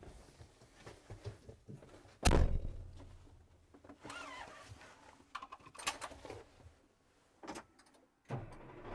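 Cab door of a Cat 972M XE wheel loader pulled shut with a heavy thunk about two seconds in, followed by scattered faint clicks and knocks.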